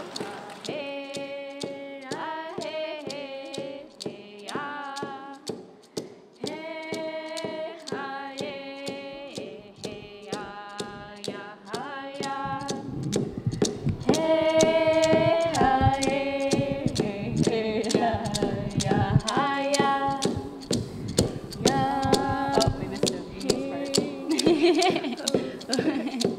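Unaccompanied voices singing held, gliding notes over a steady sharp beat about twice a second. It grows louder and fuller about halfway through.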